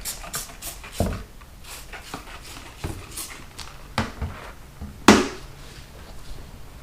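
A motorcycle tire being forced onto its rim by hand: a few quick scraping strokes at first, then scattered sharp knocks and scrapes of the rubber and tools against the wheel, the loudest about five seconds in.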